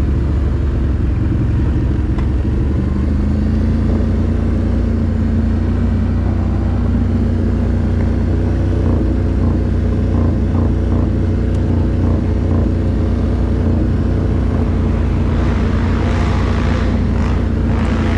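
ATV engine running at a steady pace, a low drone that holds its pitch. A rushing noise swells over the last few seconds.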